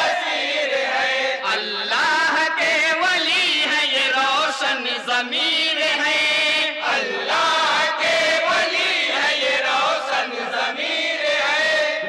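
Group of men chanting a naat, an Urdu devotional poem in praise of the Prophet, in chorus into microphones. The melodic chant runs without a break.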